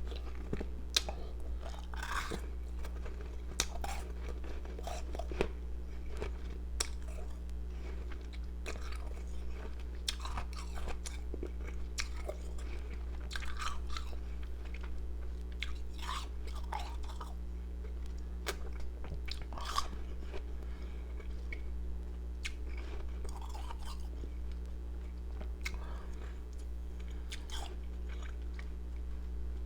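Close-up chewing and crunching of powdery ice pieces, with irregular crisp bites and crunches every second or two. A steady low electrical hum runs underneath.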